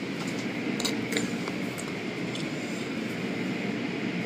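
Automatic car wash machinery running, heard from inside the car: a steady rumble with a few faint taps.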